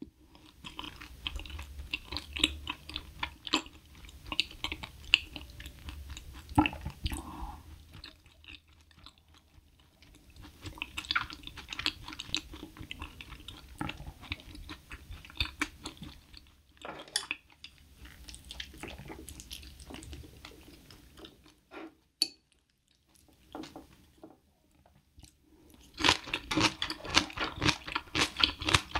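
Close-miked mouth chewing of soft food, a run of small wet clicks with short pauses. Near the end it turns into louder, crisper crunching, typical of chewing kimchi.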